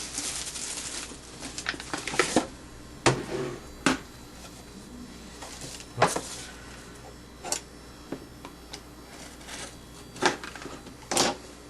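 Hands working open a sealed trading-card box: scattered sharp clicks and knocks of cardboard and plastic, with some rustling of packaging near the start.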